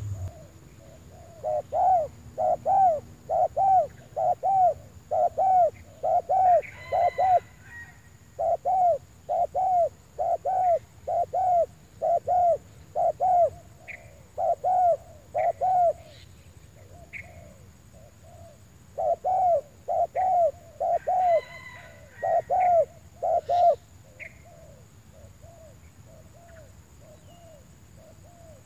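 Spotted dove (terkukur) calling: runs of short, arched coos at about two a second, in three loud runs with fainter coos between them and fainter ones again near the end.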